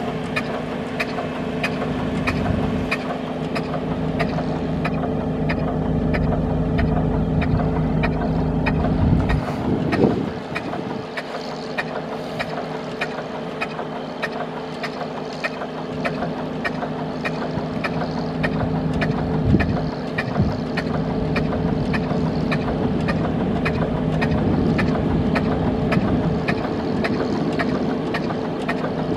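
Natural-gas engine driving a pumpjack, running steadily with a low hum and a regular sharp ticking about twice a second. Wind buffets the microphone in the first third.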